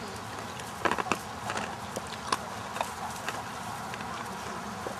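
Paint gelding walking on a sand arena: scattered, irregular clicks of hooves and tack over a steady outdoor hiss.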